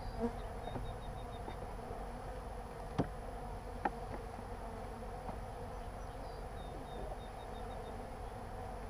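Honey bees buzzing in a steady hum around an open hive. Two sharp knocks come about three and four seconds in.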